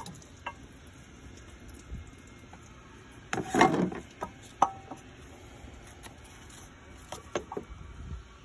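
Handling of the removed water pump: scattered clicks and knocks, with one louder noisy burst lasting about half a second roughly three and a half seconds in.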